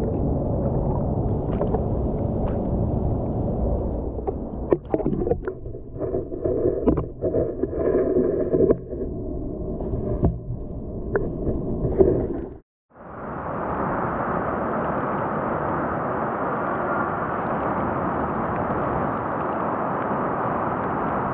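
Muffled water noise heard through an action camera held underwater beside a canoe. There is a steady dull rush at first, then a stretch of irregular knocks and splashes, a brief dropout, and a steady even rush of water to the end.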